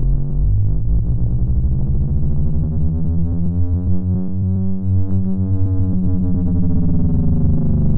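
Electronic synthesizer music: layered, sustained tones weighted low, with the deepest bass dropping out briefly about halfway through.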